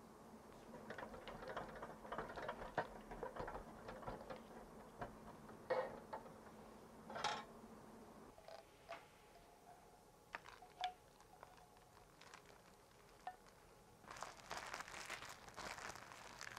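A balloon whisk stirs and scrapes thick custard in a saucepan, with light clinking of the wires against the pan, over a low steady hum that stops about eight seconds in. A few scattered faint clicks follow. Near the end, plastic cling film crinkles as it is pressed down over the custard in a plastic container.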